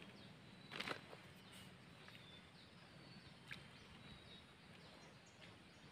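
Near silence: faint outdoor ambience with a few faint, short, high chirps and a soft tap about a second in.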